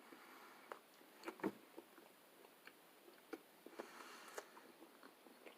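Faint mouth sounds of someone biting and chewing a chicken sandwich: a few soft scattered clicks and smacks, the loudest about a second and a half in.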